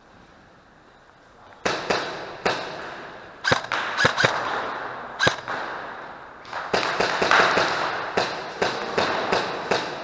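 Airsoft gunfire: sharp cracks and bangs in irregular bursts, each trailing off in an echo. The shooting starts nearly two seconds in and is densest in the second half.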